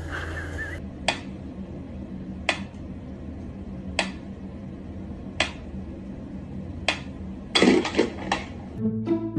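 Mechanical pendulum metronome ticking slowly, one sharp tick about every one and a half seconds, five ticks in all. Near the end comes a quick cluster of louder knocks and rattles.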